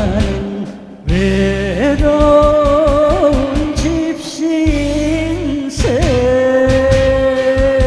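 A man singing long held notes into a microphone over a live band, with a drum kit keeping a steady beat. The music dips briefly about a second in, then carries on loudly.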